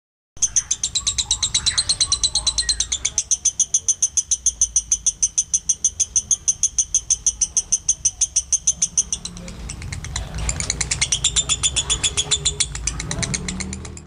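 Lovebird singing a long, fast trill of rapid high chirps, about seven a second, which breaks off for about a second just past the middle and then starts up again.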